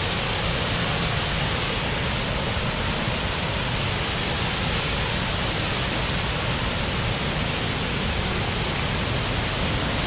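Small waterfall cascading over rock ledges into a pool: a steady, unbroken rushing of water.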